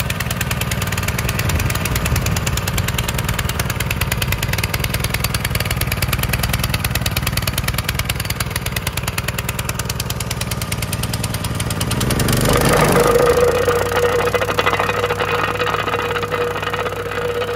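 Mikasa MVC 50GB plate compactor running, its small petrol engine and vibrating plate making a fast, steady rattle. About two-thirds of the way through the sound shifts in pitch, swells briefly and settles into a steadier hum.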